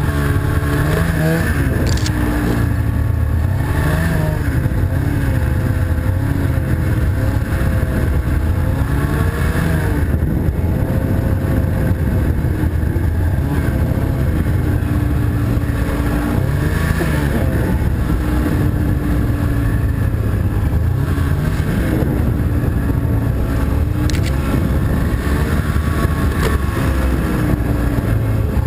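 Snowmobile engine running under way, its pitch rising and falling again and again as the throttle opens and eases off.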